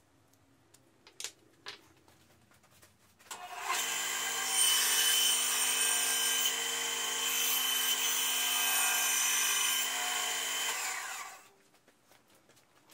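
An electric power tool's motor runs steadily for about eight seconds with a constant whine, starting about three seconds in and dying away near the end. It is preceded by a couple of light clicks.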